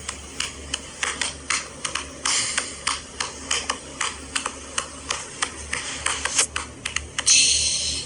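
Plastic baby toy clicking and rattling: a run of quick, irregular clicks, with a louder hissing rush near the end.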